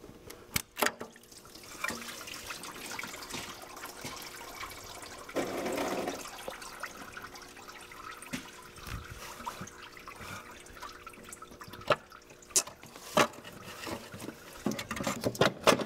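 Residual engine coolant trickling and dribbling into a catch pan as the water pump is pulled off a Volvo 850 Turbo engine, a little heavier about five seconds in. A few sharp metal clicks and knocks come near the start and in the last few seconds.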